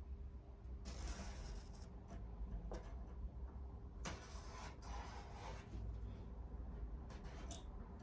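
Scratching, scraping strokes on sheet steel in a few separate bursts, over a steady low hum.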